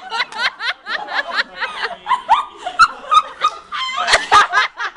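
A group of voices laughing in quick choppy bursts, mixed with short shouts and yelps.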